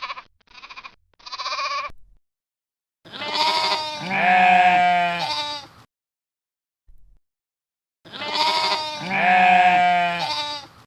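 Sheep bleating: a few short bleats in the first two seconds, then two long, loud bleats of about three seconds each, the second the same call as the first.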